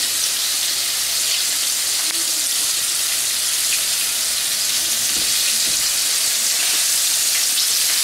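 Floured chicken pieces sizzling steadily in hot oil in a frying pan, with a constant crackling hiss.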